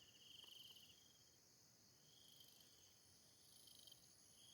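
Near silence with faint insect trills: a rapid pulsed chirring that comes and goes in short bursts, the longest at the start and briefer ones later, over a faint steady high hum.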